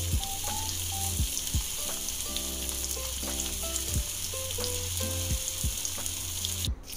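Cornflour-coated chicken pieces deep-frying in hot oil in a steel kadai: a steady sizzle and crackle of bubbling oil. Soft background music plays under it, with a brief dropout near the end.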